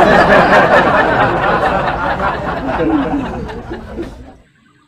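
Several people laughing in a loud burst that starts suddenly and cuts off abruptly after about four and a half seconds, like a laugh sound effect added over a missed airgun shot.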